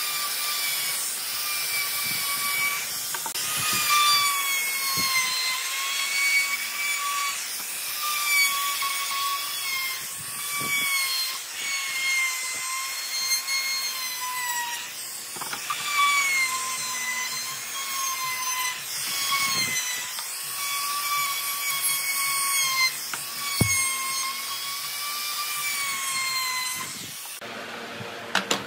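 Handheld trim router spinning at high speed and cutting the edges of pine pieces: a high whine over a hiss of chips, its pitch dipping and recovering again and again as the bit takes more or less wood. It stops shortly before the end.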